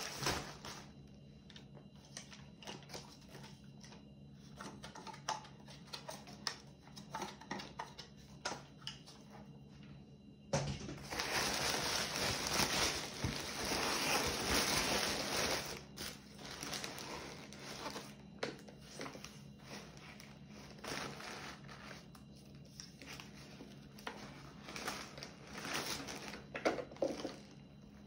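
Packaging being handled while a product is unpacked: plastic and paper crinkle and rustle with small knocks. It turns into a louder, continuous stretch of rustling about a third of the way in that lasts some five seconds, then goes back to intermittent handling.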